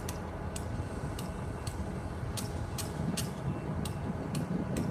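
Low, steady rumble of distant vehicles that swells slightly about three seconds in, with a sharp tick repeating about twice a second.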